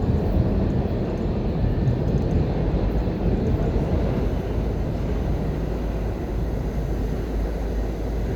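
Steady low rumble of a subway train running through the station, easing off slightly over the last few seconds.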